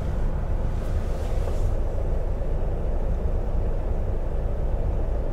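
Volvo truck's diesel engine idling steadily while the lorry stands still, heard from inside the cab as a low, even rumble.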